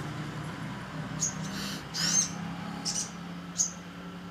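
Sogok ontong (a sunbird) singing actively: a string of short, high, sharp chirps and quick twittering notes, five or six in a few seconds, over a steady low hum.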